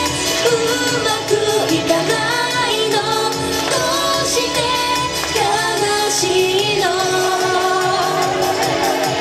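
Japanese idol-pop song: a young woman's singing voice, amplified through a handheld microphone, over a recorded pop backing track.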